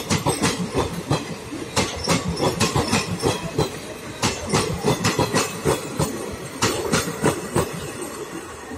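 Wheels of passing Indian Railways passenger coaches clacking over the rail joints, sharp clicks in quick groups as each bogie goes by over a steady rolling rumble, easing off near the end.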